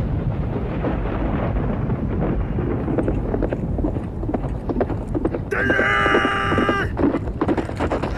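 Horses galloping: a rapid, dense drumming of hoofbeats on the ground. Past the halfway point one horse whinnies for about a second and a half.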